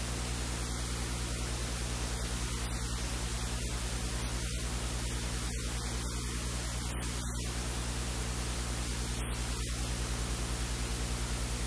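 Steady electrical hiss and static with a low mains hum. No other sound stands out above it.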